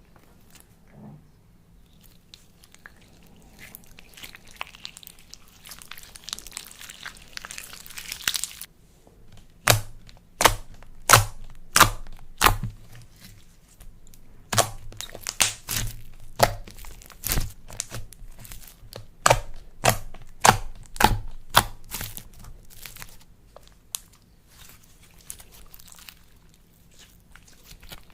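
Close-up crinkly crackling, then a run of sharp, loud snaps and pops about one to two a second, easing back to softer crackling near the end: a crunchy material being pressed and squeezed by hand.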